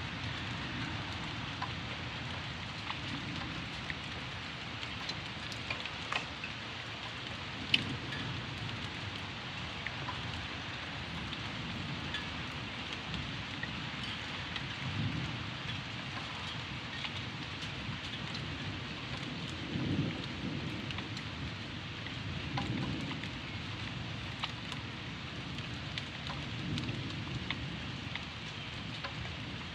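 Steady rain falling, with sharp ticks of drops striking close by, under distant thunder rumbling in repeated low swells that rise and fade every few seconds. A single drop tick about eight seconds in is the loudest moment.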